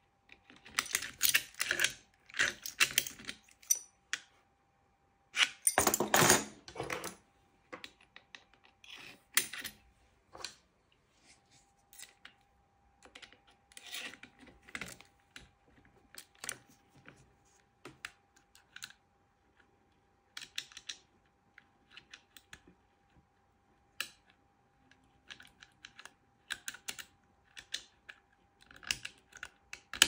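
Lever-lock pick and tension tool clicking, scraping and rattling against the levers inside the keyhole of a Eurospec 5-lever British Standard mortice deadlock, in irregular bursts of light metallic ticks. The busiest, loudest rattling comes in the first seven seconds.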